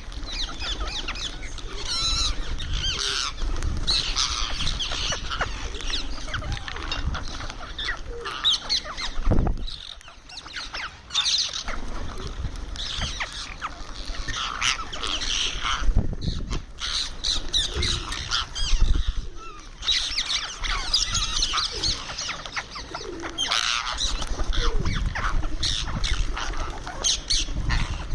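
Indian ringneck parakeet chattering and squawking in quick, busy chirps while it eats, with a short lull about ten seconds in.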